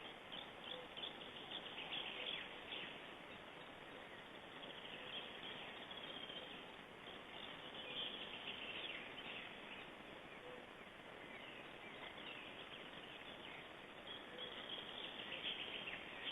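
Faint chirps and calls of small forest birds, scattered and repeated, over a steady background hiss.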